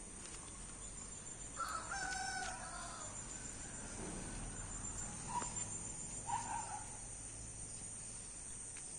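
A rooster crows once, faintly, starting about a second and a half in, followed later by two short calls; a steady high-pitched insect drone runs underneath.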